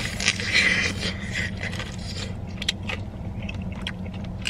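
Crisp crackling and scraping of fried chicken being handled and bitten, loudest in the first second and a half, then scattered small clicks, over a steady low hum.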